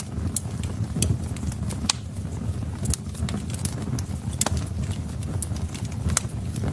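Wood fire crackling: irregular sharp pops and snaps of burning logs over a low steady rumble.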